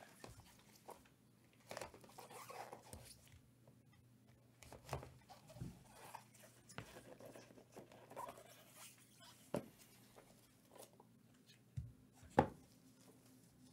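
Gloved hands opening a Panini National Treasures soccer card pack and sliding the cards out: faint rustling of card and wrapper with scattered light taps and clicks, the sharpest a little after twelve seconds in.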